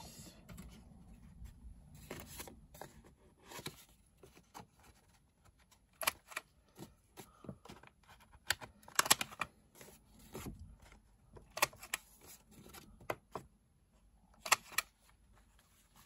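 Corners of a paper journaling card being rounded off: a series of sharp clicks and snips a few seconds apart, the strongest four spread through the stretch, with soft paper handling between them.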